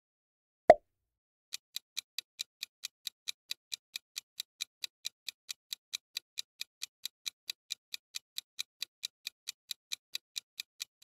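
Clock-ticking countdown sound effect, about four sharp ticks a second, marking the time left to answer a quiz question. It starts about a second and a half in, after a single short pop at the change of slide.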